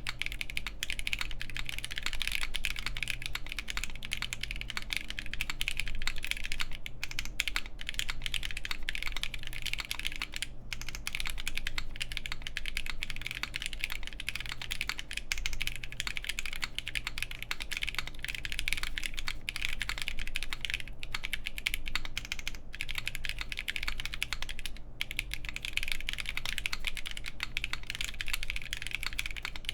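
Steady fast typing on a Gray Studio BD60 gasket-mount mechanical keyboard with lubed Haimu Pastel Peach linear switches, an FR4 plate and GMK keycaps, with a few brief pauses.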